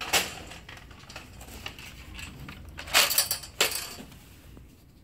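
Handling noise from printer parts: clattering and clinking of plastic and metal, with a sharp clatter at the start and the loudest rattles about three seconds in.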